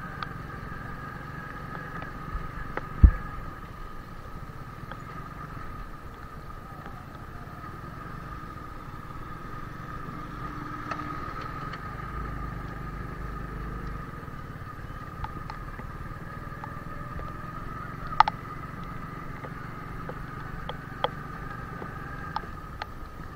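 Motorcycle engine running steadily at low speed on a rough, wet dirt road, with a steady hum. A loud sharp thump about three seconds in and a smaller knock near eighteen seconds, as the bike jolts over the uneven ground.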